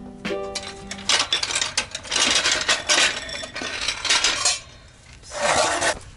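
Metal trolley floor jack clattering and clinking as it is let down and dragged out from under the car across paving stones.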